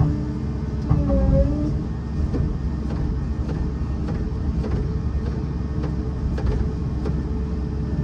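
Excavator's diesel engine running under load, with its hydraulics working: a dense, steady low rumble with scattered sharp clicks and knocks as the grapple works at a tree stump.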